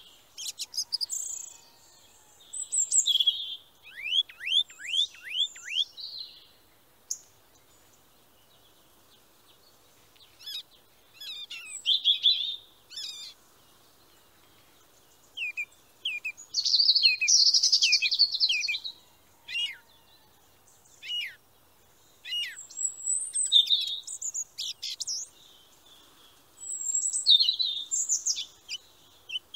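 Birds chirping and calling in bursts with short pauses: high chirps and trills, with a quick run of about eight downward-sliding whistles about four seconds in.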